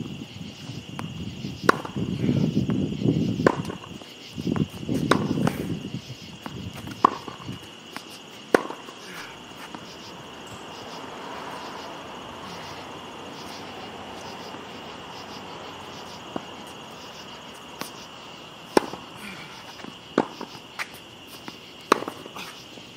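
Tennis ball struck by Head racquets strung with Kirschbaum strings and bouncing on the hard court during a groundstroke rally: sharp pops a second or more apart, with a long gap in the middle. Crickets chirp steadily underneath.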